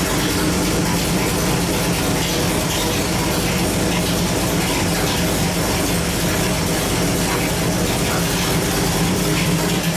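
517 hp 383 cubic-inch small-block Chevrolet stroker V8, carbureted, running steadily on an engine dyno at a constant speed.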